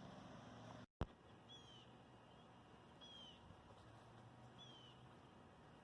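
Near silence with a faint bird repeating a short, falling chirp three times, about every second and a half. A brief click about a second in.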